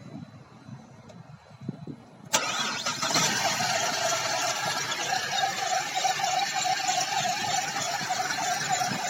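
Chevrolet Caprice GM V6 engine starting suddenly about two seconds in, then running steadily with a wavering whine above it. The engine has a misfire, which the owner puts down to the left-side cylinder head not working.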